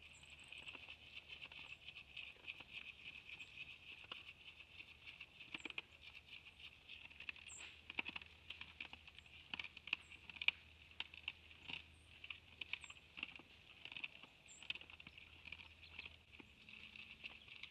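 White-tailed bucks eating feed from a trough, giving faint, irregular crunching and clicking, over a steady high hiss. A few short, high bird chirps come through now and then.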